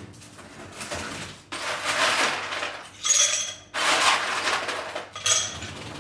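Ice being fetched: several rattling bursts of about a second each, with ringing clinks of ice against a container.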